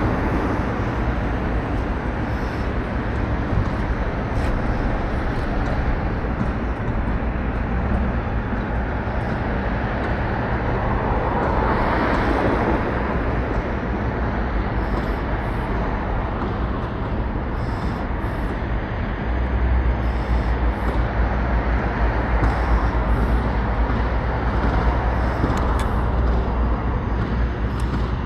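Steady road traffic noise, with a vehicle passing about twelve seconds in.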